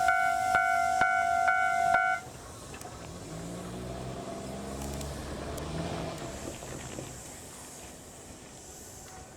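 Japanese level-crossing bell ringing with about two dings a second, cutting off suddenly about two seconds in. Then an electric train's motor hum rises and falls as it moves, over wind noise.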